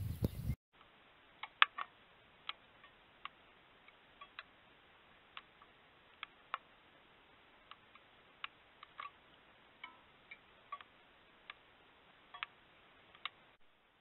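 Faint steady hiss with irregular sharp ticks, one or two a second, some louder than others. A louder low sound cuts off about half a second in.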